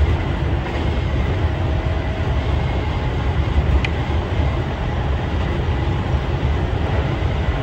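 Kintetsu electric train running along the line, heard from inside the front car: a steady rumble of wheels on rail with a faint steady whine above it, and a single sharp click about four seconds in.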